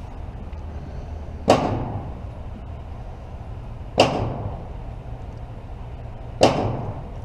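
Three gunshots at a shooting range, evenly spaced about two and a half seconds apart, each with a ringing tail of reverberation.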